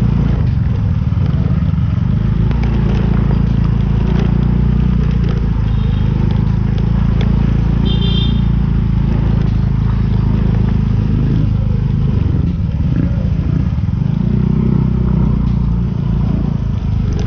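Motorcycle engine running steadily while riding along a rough dirt road, mixed with dense low wind and road noise on the microphone. Two brief high beeps sound in the middle.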